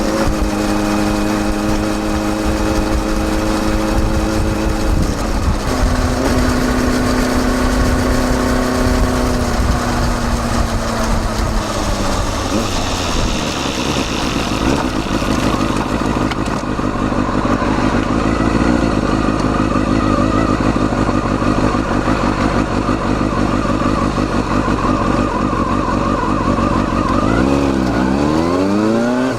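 Kawasaki Balius 250 cc inline-four exhaust through a Wr's muffler with its baffle fitted, heard from right at the silencer while riding. It holds a steady note, then the pitch steps down and falls slowly as the bike slows, runs through a long rougher stretch, and near the end dips briefly before climbing sharply as it accelerates.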